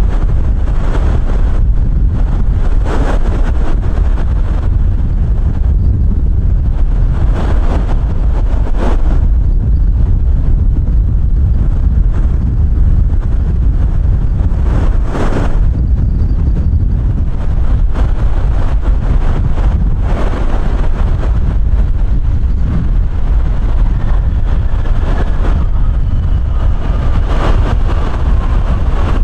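Strong gusting wind buffeting the microphone: a heavy, steady rumble broken by irregular stronger gusts. A faint thin whine joins near the end.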